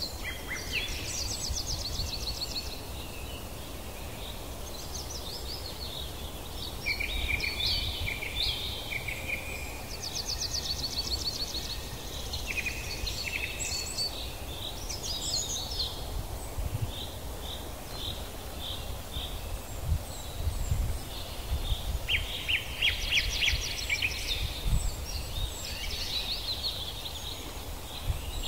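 Several birds chirping and calling in fast trills of rapidly repeated notes, overlapping at times, over a steady low rumble.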